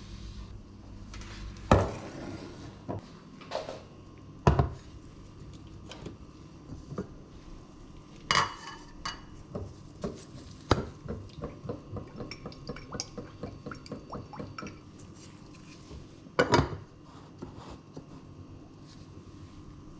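Kitchenware being handled on a counter and hob: several sharp knocks and clinks of wood, glass and metal, one of them ringing, with a run of small taps in between.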